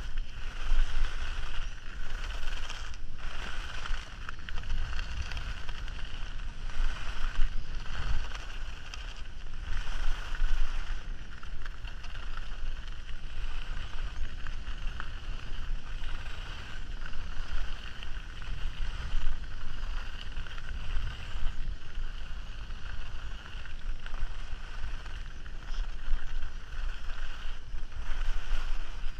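Skis running downhill on hard-packed snow, the edges hissing and scraping as they turn. Heavy wind buffets the action camera's microphone, and the noise swells and fades with the turns.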